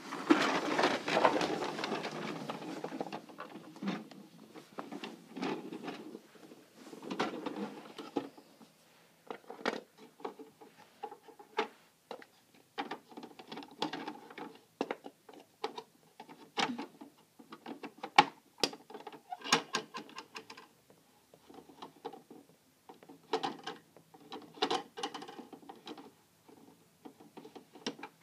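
Plastic Bruder toy Mercedes bin lorry on wooden floorboards: a steady rolling rattle for the first few seconds, then scattered plastic clicks, rattles and knocks as the toy is worked by hand at its rear.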